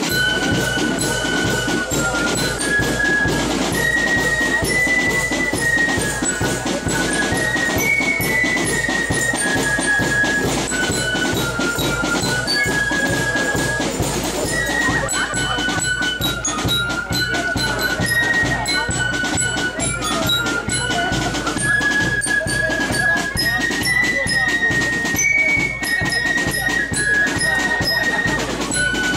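Marching band (Spielmannszug) playing a march: a high melody over a steady beat of snare and bass drums.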